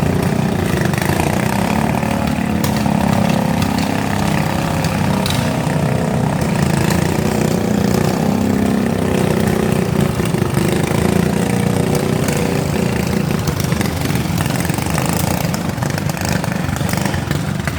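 Several riding lawn mower engines running at once in a steady mechanical drone, with a few sharp knocks.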